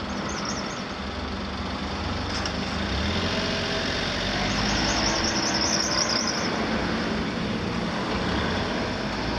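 Steady rumble of a passing vehicle, growing louder toward the end, with faint high warbling chirps twice.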